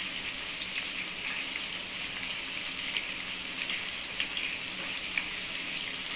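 Squash cubes, onion and garlic sizzling in oil in a stainless-steel pot: a steady hiss with a few small pops.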